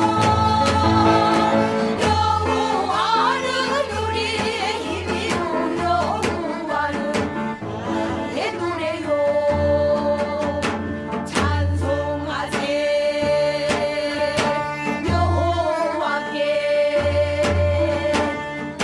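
Music: a voice sings a wavering melody with long held notes over strings and a steady low beat.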